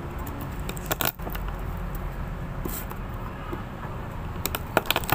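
Knife tapping and clicking on a wooden cutting board while garlic cloves are peeled and crushed: a few sharp clicks about a second in and several more near the end, over a steady low background noise.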